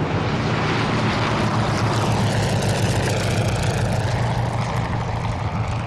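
A Junkers Ju-52 trimotor's three radial engines and propellers running at high power during take-off and a low pass, a steady deep drone with a noisy edge. About halfway through the tone shifts and sweeps as the aircraft goes by.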